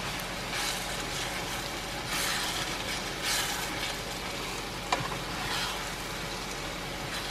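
Tomato sauce with dried fish and smoked meat sizzling in a frying pan as it is stirred with a wooden spatula, the hiss swelling and easing with the strokes. One sharp tap about five seconds in.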